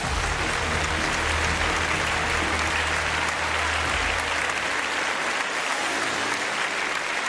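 Studio audience applauding steadily, with a low sustained note of backing music fading out under the first half.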